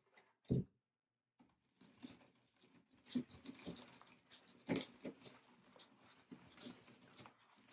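A single thump about half a second in, then an irregular crackling rustle of faux magnolia leaves and dry grapevine twigs as a freshly glued stem is pressed and worked into a grapevine wreath.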